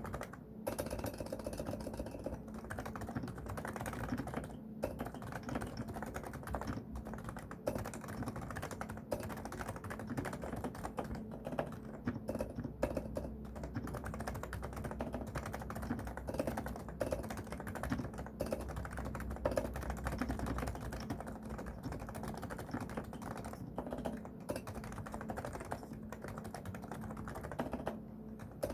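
Continuous typing on a Realforce R2SA keyboard with silenced (low-noise) 45 g even-weight Topre electrostatic capacitive switches: a dense run of key strokes with a few brief pauses.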